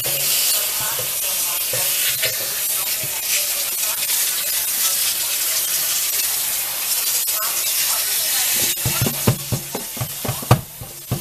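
Kitchen sink sprayer hissing steadily as water runs over frozen baby lima beans in a plastic colander, with hands stirring through the beans. Several sharp knocks come in the last two seconds or so.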